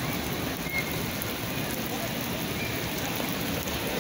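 Steady rain falling on wet stone paving: an even, continuous hiss of rain spattering on the open courtyard floor.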